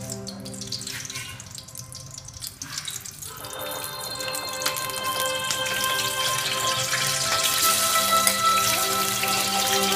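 Hot oil sizzling in a steel wok, the sizzle thickening from about three seconds in and growing louder near the end as pieces of chicken breast go into the oil and start to fry. Background music plays throughout.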